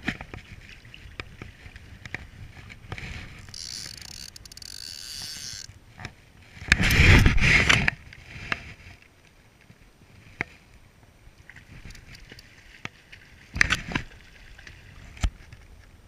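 Water sloshing around a wading angler playing a hooked fish on a spinning rod and reel. Light clicks run throughout, with a high buzz for about two seconds a few seconds in. About seven seconds in comes a loud rush of noise lasting about a second, and there are two sharp knocks near the end.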